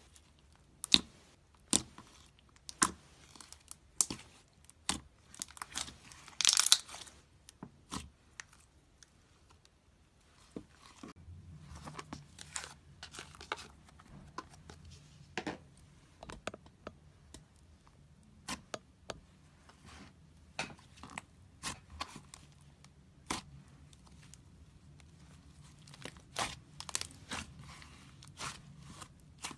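Slime being poked, squished and stretched by hand, giving many sharp, irregular clicks and pops, with a longer crackling, tearing sound about six seconds in.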